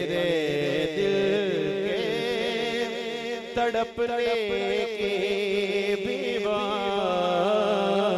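A man singing a devotional naat through a microphone and PA, in long held notes that waver and bend in pitch, over a steady low drone.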